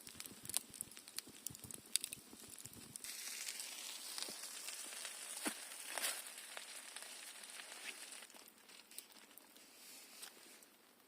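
Campfire crackling with light crinkling and rustling. A steady hiss comes in about three seconds in and fades out a few seconds later.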